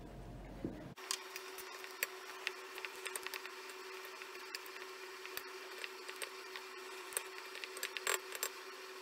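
Strawberry jam boiling in a stainless steel pot, stirred with a wooden spoon: scattered pops and clicks from the bubbling and the spoon against the pot over a faint steady hum. This is the final minute of boiling after the lemon juice goes in.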